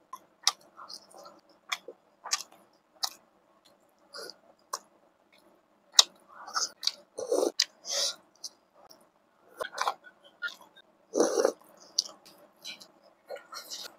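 Close-miked chewing and lip-smacking of a person eating steamed momos (dumplings) by hand, irregular wet mouth clicks and smacks with a few louder ones.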